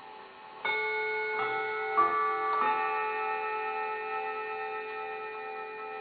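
Mechanical mantel clock striking a four-note quarter-hour chime, the notes struck about two-thirds of a second apart and left ringing together, slowly fading, over the faint ticking of the movement.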